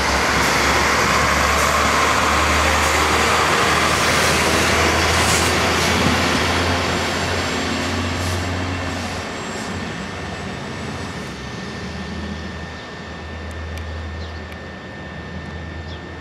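Network Rail multi-purpose vehicle (MPV), a diesel track-maintenance unit, running through the station with a steady low engine drone and rushing wheel-on-rail noise. It is loudest for the first half as it passes close by, then fades as it moves away.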